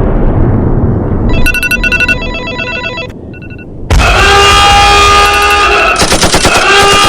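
A deliberately loud prank alarm-clock sound built from jarring noises. The rumble of an explosion dies away, and about a second in an electronic ringing beep pattern starts, followed by a few quieter beeps. About four seconds in, a loud blaring tone cuts in suddenly, and rapid machine-gun fire is added near the end.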